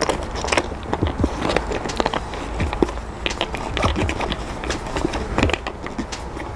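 Irregular plastic clicks and crinkles from hands working the cap on top of a Quechua 8-litre solar pressure shower bag.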